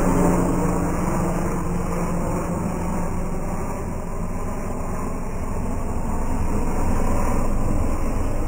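Medevac helicopter flying a maneuvering pass: a steady rotor-and-turbine drone whose pitched hum fades after the first couple of seconds, dipping in the middle and swelling again near the end.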